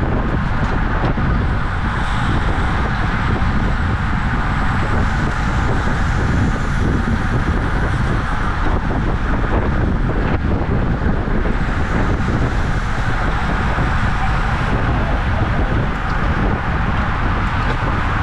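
Steady, loud wind rush on the microphone of a camera riding along on a racing bicycle at speed.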